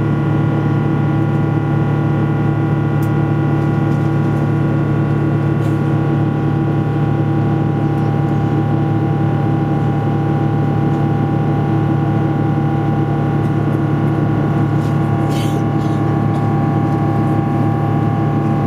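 Cabin noise inside a Boeing 777-200ER climbing after take-off: a steady drone from its GE90 turbofan engines, with a set of steady whining tones over it.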